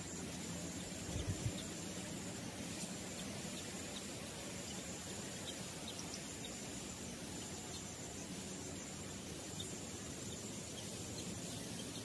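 Steady outdoor background of insects droning at a high pitch over an even hiss, with scattered faint ticks. A couple of low thumps come just over a second in.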